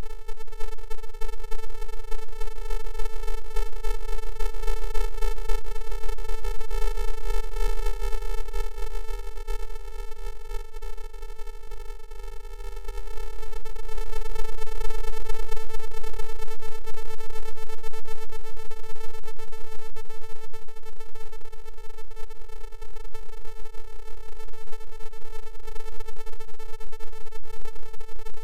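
A steady electronic buzzing tone with evenly spaced overtones over a low hum. It dips briefly about every four seconds and gets louder about halfway through.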